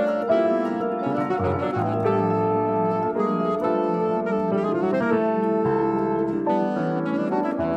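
Chamber jazz music: an alto saxophone plays held melodic notes over piano chords and low bass notes.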